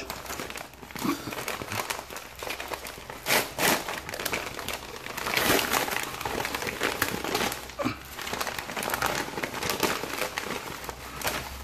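A white shipping mailer being torn open by hand and its packaging handled, crinkling and rustling in irregular bursts.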